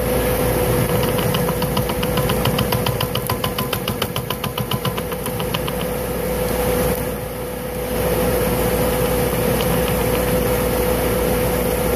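Boxer 532 DX mini skid steer's engine running steadily with the rotary tiller attached. A fast, regular ticking rides on it from about a second in until about halfway through, and the sound dips briefly before steadying again.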